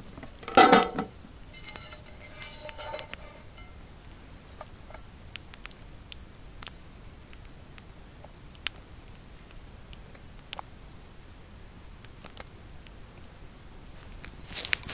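Metal skillet handled: a loud clank with a brief ring about half a second in, lighter clinks a couple of seconds later, then scattered faint ticks and a rustle near the end.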